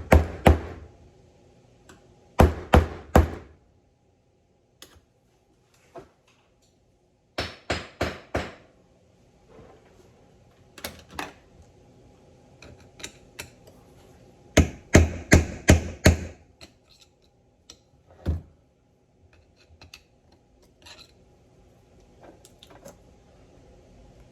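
Sharp knocks from work on a steering box during its teardown, coming in short runs: a few strikes at the start, three about two and a half seconds in, four around eight seconds, a longer run of about seven around fifteen seconds, and a single knock near eighteen seconds.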